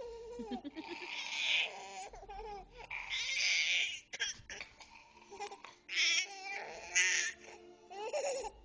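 A baby making a run of strange vocal sounds: wavering, cry-like wails broken by about five raspy, high-pitched squealing bursts.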